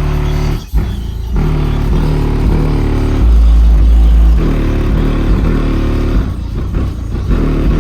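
Bass-heavy music played loud through a car's newly installed speakers and subwoofers, with deep bass notes that step in pitch and a heavy boom of bass a little past the middle.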